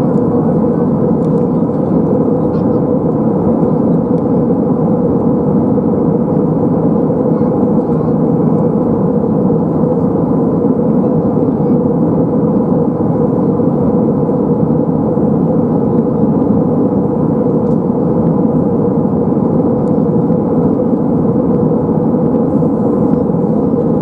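Steady in-flight cabin noise of an Airbus A320-232 heard from a seat over the wing: the even drone of its IAE V2500 turbofan engines and the airflow over the fuselage, with a steady hum running through it.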